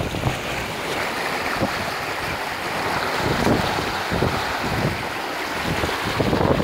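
Water rushing and splashing along a Bavaria sailing yacht's hull as it sails through a short, choppy sea, with wind buffeting the microphone. The rush swells louder near the end.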